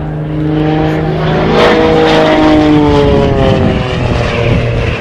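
Propeller aircraft flying past. Its engine and propeller tone swells to its loudest about one and a half seconds in, then drops in pitch as it moves away.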